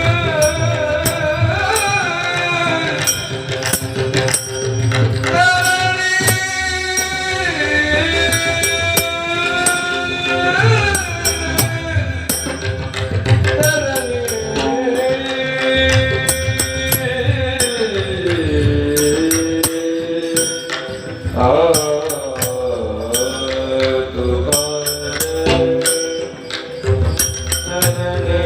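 Devotional gatha bhajan: a singer holding long notes that slide slowly up and down in pitch, over a steady beat of drum and small hand cymbal strokes.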